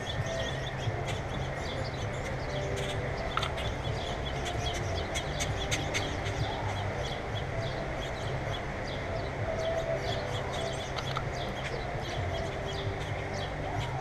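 Wild songbirds chirping around a backyard feeder, many short high chirps overlapping throughout, over a steady low background rumble.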